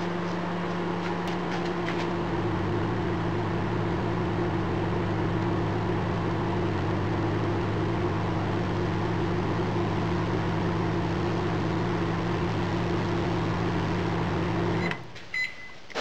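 Panasonic inverter microwave oven running on maximum power, a steady hum while it cooks, on a test run to check that its inverter works. About a second before the end it stops, and a few short high beeps mark the end of the cycle.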